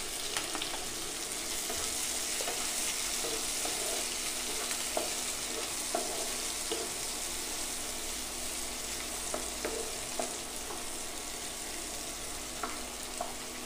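Chopped onions, garlic and green chillies sizzling steadily in hot oil in a nonstick pan. A wooden spatula stirs them, with scattered light scrapes and taps against the pan.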